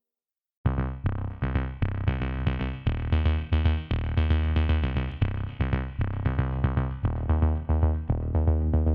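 Electronic background music with a synthesizer and a fast drum-machine beat, starting suddenly about half a second in.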